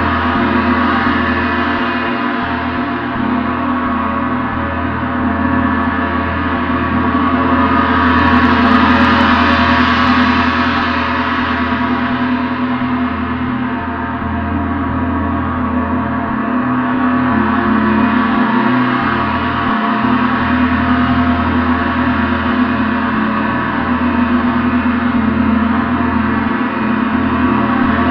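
A gong played continuously, building a dense wash of many overlapping ringing tones with no separate strikes standing out. It swells louder and brighter about a third of the way in, eases back, then swells more gently again past the middle.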